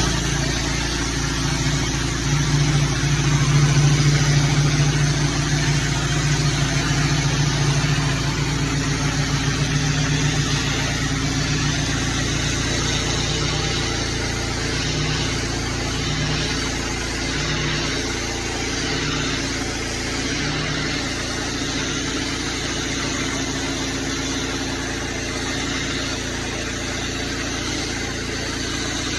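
A small petrol engine running steadily under a constant rushing hiss, a little louder and rougher in the first several seconds, then settling to an even drone.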